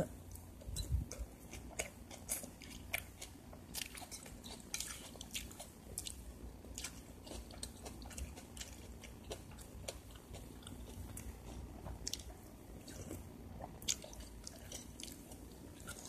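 Close-up chewing and biting of pork and noodles from a boat-noodle soup, with irregular short clicks and taps of a metal spoon in the bowl.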